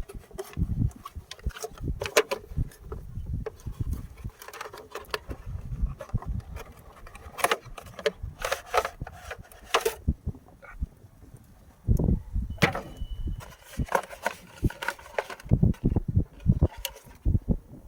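Irregular clicks, knocks and rubbing of things being handled, with low thumps, and a brief high tone about thirteen seconds in.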